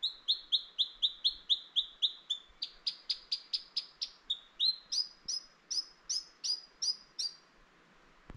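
New Zealand robin (toutouwai) singing a long run of clear, downslurred notes, about four a second, stepping up to a higher pitch a few seconds in and stopping near the end.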